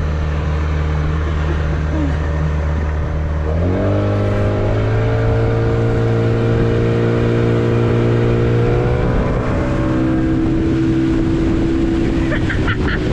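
A small boat's 15 hp outboard motor running steadily under way. About four seconds in it speeds up, rising to a higher pitch and holding there, and the engine note shifts again near ten seconds.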